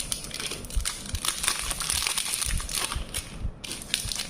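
Packaging crinkling and rustling as the lighter's box is handled, with a few soft knocks.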